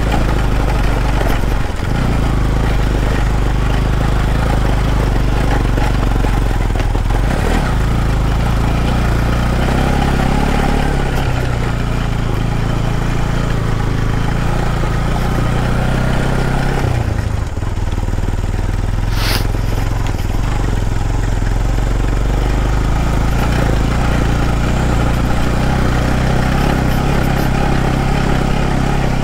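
Motorcycle engine running steadily as the bike is ridden, its engine speed shifting a few times. A brief sharp high-pitched sound about two-thirds of the way through.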